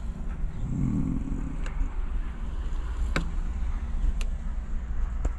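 Steady low rumble of a vehicle heard inside a car's cabin, with a short low hum about a second in and a few faint clicks.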